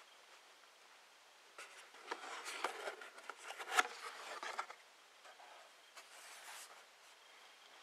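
Cardboard reel box being handled: irregular rubbing and scraping of card starting about a second and a half in, with several sharp clicks, the loudest just before the middle, and a softer rub near the end.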